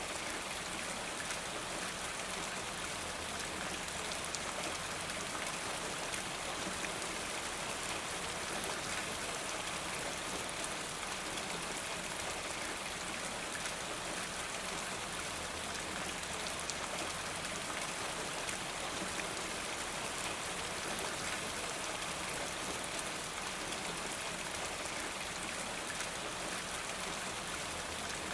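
Steady rain falling, an even hiss flecked with the fine patter of individual drops.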